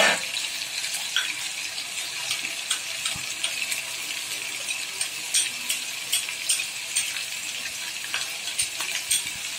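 Onion paste sizzling in hot mustard oil in a frying pan, a steady high hiss, while a metal spatula stirs it, with frequent light clicks and scrapes against the pan.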